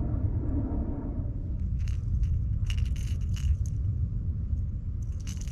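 Low rumble of wind buffeting the microphone on open water, with a cluster of light clicks and jingles about two to three and a half seconds in and a few more near the end.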